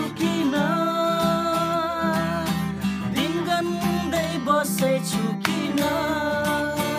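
A man singing while strumming an acoustic guitar. He holds long sung notes in the first couple of seconds and again near the end, over steady strummed chords.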